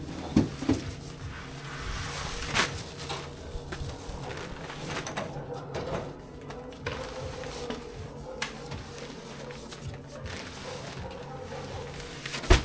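Heavy paper cement sacks being dragged off a truck bed and dropped onto a stack: a couple of thuds near the start, another about two and a half seconds in, and the loudest near the end, with scraping and rustling of the sacks between, over a faint steady hum.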